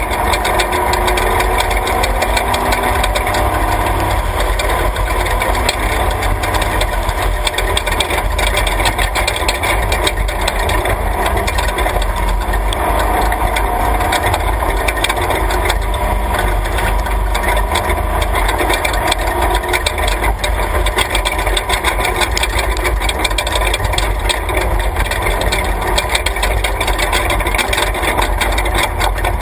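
Class 3 off-road race truck's engine running under load on a rough dirt road, its pitch rising and falling with the throttle. The truck's body and suspension rattle constantly over the bumps.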